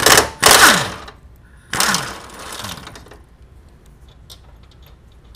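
Cordless impact wrench hammering in three short bursts on an engine mount bolt through an E12 reverse Torx socket, its motor winding down in falling pitch after each burst. A few faint clicks follow.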